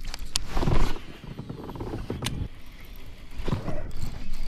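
Baitcasting reel being cast and cranked while working a crankbait, with clicks and knocks from the reel and rod handling over steady wind and water noise; the loudest knock comes just under a second in.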